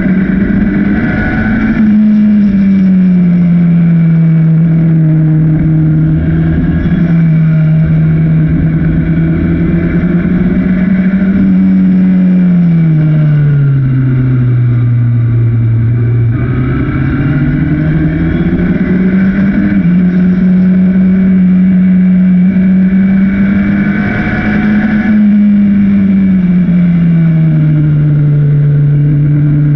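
1965 Bobsy SR-3 sports racer's engine heard from its open cockpit at racing speed, running loudly throughout. Its note drops sharply about a second in, sinks lowest around fifteen seconds in as the car slows for a corner, climbs again under acceleration, and drops once more near the end.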